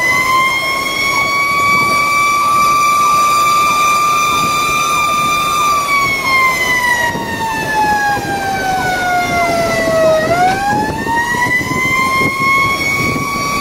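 Fire engine siren wailing, heard from inside the engine's cab over road and engine noise: a steady high tone that slowly winds down over about four seconds, then climbs back up about ten seconds in.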